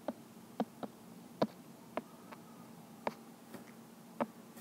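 Stylus tip tapping and clicking on an iPad's glass screen while a word is handwritten: about eight light, irregularly spaced clicks over a faint background hiss.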